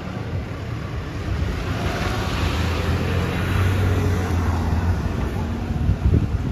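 An ambulance drives past close by: its engine hum and tyre noise build to their loudest about three to four seconds in, then ease off.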